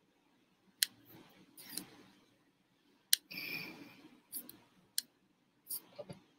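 Three sharp clicks, spaced about two seconds apart, with short scratchy rustles between them: quiet handling or mouse noise at a computer.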